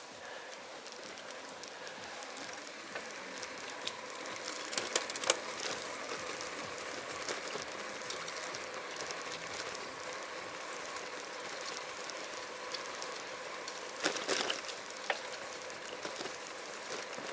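Steady hiss of light rain and of bicycle tyres rolling on a wet road, with a few sharp clicks and taps about five seconds in and again near the end.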